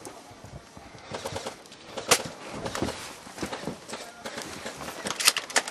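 Airsoft guns firing in an irregular exchange of sharp snaps and clicks, with the two loudest shots about two seconds in and near the end.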